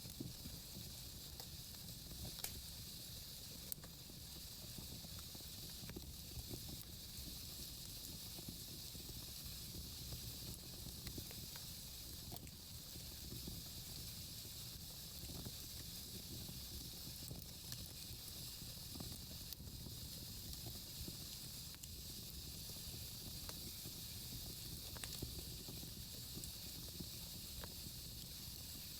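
Wood fire burning in a fireplace: a faint, steady hiss and low rush of the flames, broken by sparse sharp crackles and pops from the burning logs.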